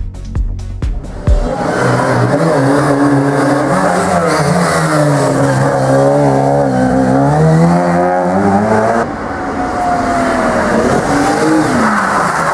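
A short stretch of music with a beat gives way, about a second in, to a historic race car's engine revving hard. The engine's pitch falls and climbs again with throttle and gear changes. Around nine seconds in a tyre squeals, then the engine picks up again.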